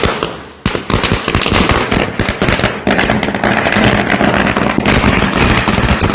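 Firecrackers going off in rapid succession: a few separate bangs, then about half a second in a dense, unbroken crackle of loud bangs.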